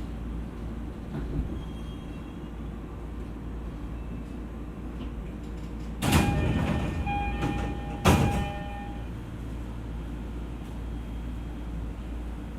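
Passenger doors of an E231 series commuter train closing. Under a steady low hum, a door chime sounds about six seconds in with a burst of air, and the doors shut with a bang about two seconds later.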